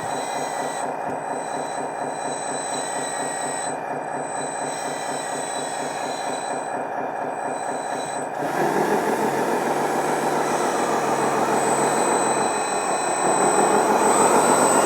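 Electronic diesel engine sound from the 1:14 RC bulldozer's sound module, played through its small speaker: a steady pulsing idle that revs up louder about eight and a half seconds in, eases briefly, then revs again as the dozer is driven and its hydraulics worked.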